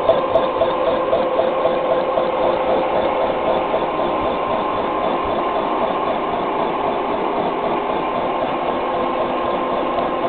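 Vertical milling machine's face mill cutting across a steel plate under coolant spray: a steady machining whine and hum, with a rhythmic pulse about three or four times a second in the first few seconds that then evens out.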